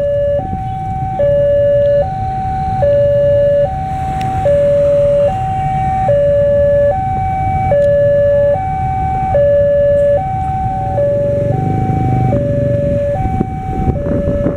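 Railway level-crossing warning alarm sounding a steady two-tone hi-lo signal, each tone held just under a second without changing pitch or loudness, the signal that a train is approaching. A low rumble of traffic runs underneath.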